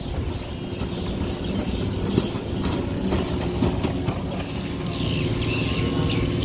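Outboard boat engine idling steadily, with a few light knocks mixed in.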